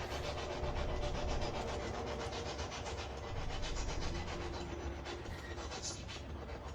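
Spirit box (scanning radio) sweeping through stations: a rapid, evenly chopped hiss of static with faint snatches of tone, used to listen for spirit voices.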